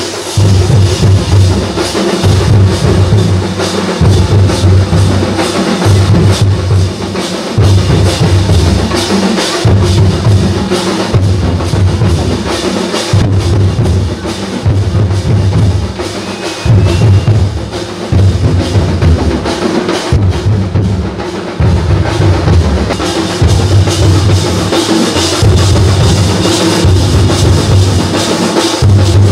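Loud drum music: a deep beat repeating about every second and a half over continuous busy percussion.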